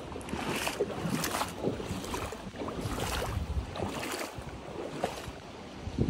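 Feet wading in a shallow creek, splashing the water in irregular steps, with wind rumbling on the microphone.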